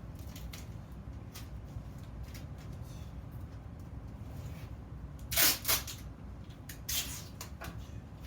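Scattered light clicks and knocks of work pieces being handled, with two louder sharp knocks about five and a half seconds in and another about a second later, over a steady low hum.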